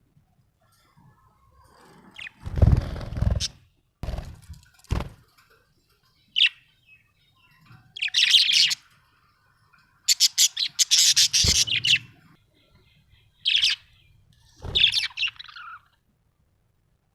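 Budgerigar chirping in short, rapid bursts of high twitters. In the first few seconds there are several low thumps.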